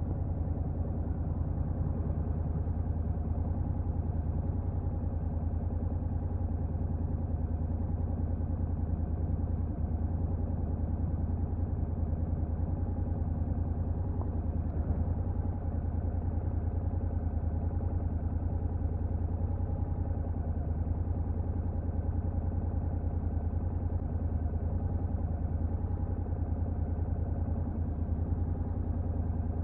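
Stock Honda NC750X's 745 cc parallel-twin engine running at a steady, unchanging engine speed through its stock exhaust.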